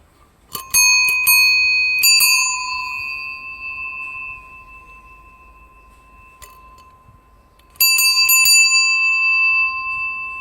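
Steel bicycle bell rung with a quick series of strikes, then rung again the same way near the end, each time ringing on with a clear tone that slowly fades.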